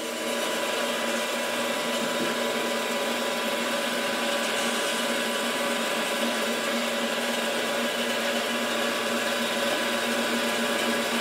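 A 10-inch benchtop band saw running with no wood in the blade: a steady motor hum and blade whir.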